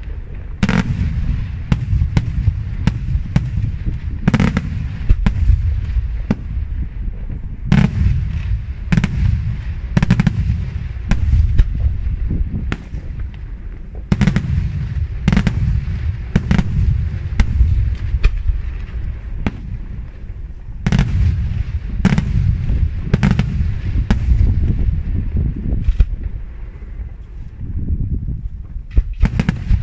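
Daytime aerial fireworks: a steady stream of sharp bangs from shells bursting overhead, irregular but about one or two a second, over a continuous low rumble.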